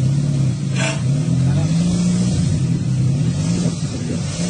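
Microvan engine running at low revs as the van reverses slowly, its pitch rising and falling a little as the throttle is eased on and off. There is a short burst of hiss about a second in.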